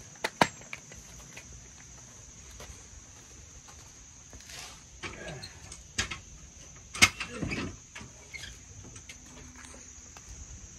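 A handful of sharp clicks and knocks, loudest about seven seconds in, with a few brief scrapes, over a steady high chirring of crickets.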